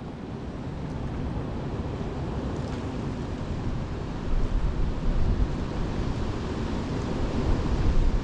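Gusty wind buffeting the microphone: a steady low rumble that swells about four seconds in and again near the end.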